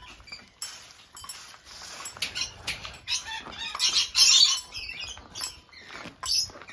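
Parrots in the aviaries screeching and fluttering, with the loudest harsh call about four seconds in, over a run of footsteps along the path.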